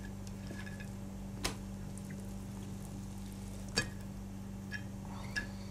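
Steady low hum with a few short, sharp clicks or taps, the loudest about four seconds in.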